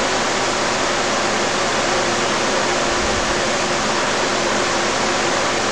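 Steady, even hiss of room noise with a faint low hum, unchanging throughout; no distinct events.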